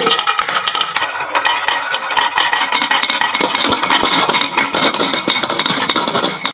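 Many marbles clattering down a wooden marble run slope: a dense, continuous rattle of small clicks and clinks.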